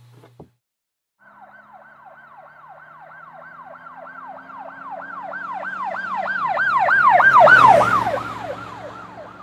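Emergency vehicle siren in a rapid yelp, sweeping up and down about three times a second. It grows steadily louder to a peak near the end, then fades as the vehicle passes.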